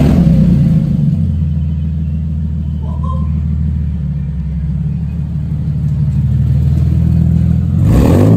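Nissan 370Z's 3.7-litre V6 idling with the cat-back exhaust removed, so it runs open straight from the catalytic converters, loud and deep. A brief rev rises and falls near the end.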